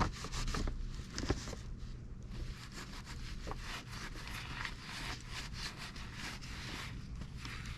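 Irregular scraping, rubbing and small clicks of hands and parts being handled, with a few sharper knocks in the first second and a half.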